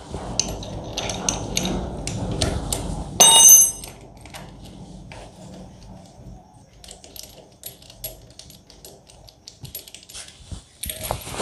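A plug spanner loosening and unscrewing a motorcycle spark plug from the cylinder head: scattered small metal clicks and scrapes, with one louder ringing metal clink a little over three seconds in.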